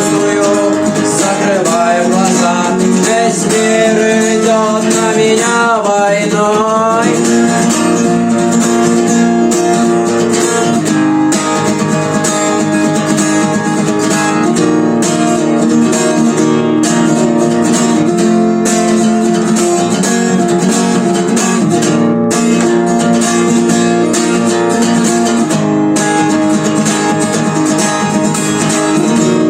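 Guitar music: an instrumental passage with a melody line over steady strummed accompaniment, with bent, gliding notes between about two and seven seconds in.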